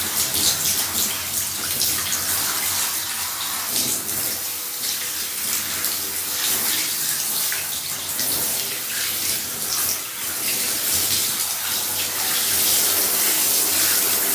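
Handheld shower head spraying water steadily onto hair and splashing into a bathtub.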